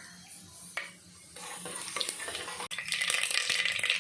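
Tempering spices (mustard seeds, fenugreek, cumin and broken dried red chilli) sizzling in hot oil in a pressure cooker. The crackling builds from about a second and a half in and is loud and dense near the end as the mustard seeds start to splutter.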